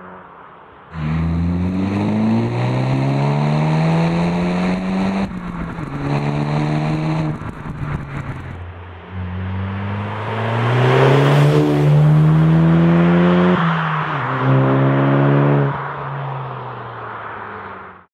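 Skoda Octavia RS 2.0 TSI turbo four-cylinder with a Supersprint catback exhaust (centre pipe, Y-pipe and twin mufflers), accelerating hard through the gears. The pitch climbs in each gear and drops at each upshift. It passes close by in the middle with a loud rush, then pulls away and fades.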